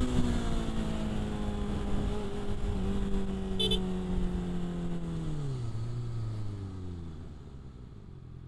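Honda CBR650F's inline-four engine running at steady revs, then the revs fall about five seconds in and the engine note fades as the bike slows. A brief high chirp about three and a half seconds in.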